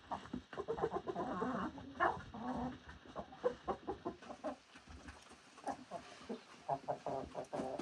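Chickens clucking: a run of short, irregular clucks from several birds.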